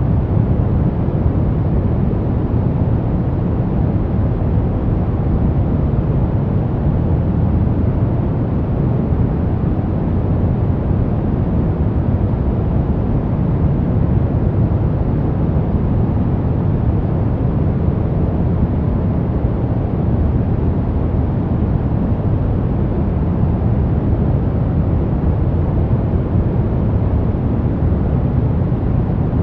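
Steady brown noise: an even, deep rushing hiss, strongest in the bass and falling away toward the treble, with no changes or events.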